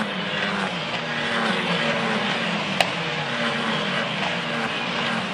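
Formula 4 single-seaters, Tatuus cars with 1.4-litre turbocharged four-cylinder engines, running as they pass one after another. There is one sharp click about halfway through.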